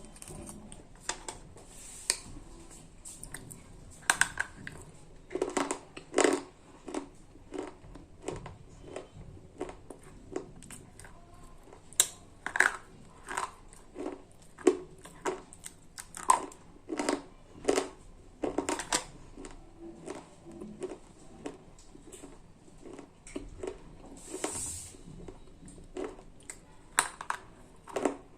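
Slate pencils being bitten and chewed close to the microphone: a long run of sharp, dry crunches, about one or two a second, with quieter grinding in between.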